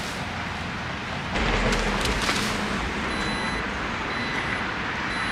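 SUV power liftgate sounding its short high warning beep about once a second from about three seconds in, as it begins to close, over a steady outdoor hiss. A brief low rumble comes about a second and a half in.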